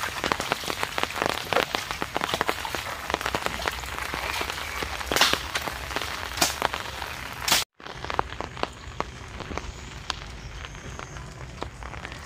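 Dense crackling rustle of wet leaves and twigs as fallen tree branches are pulled and shaken, with a few louder snaps. The sound cuts off abruptly past the middle and comes back as sparser ticking.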